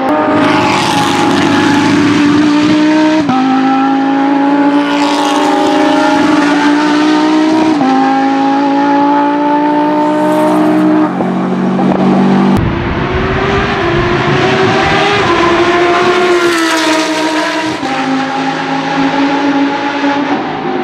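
Lamborghini race car engine at high revs, its pitch climbing steadily and then dropping sharply at each quick upshift, about every four to five seconds. After an abrupt change about halfway through, it accelerates again and shifts once more.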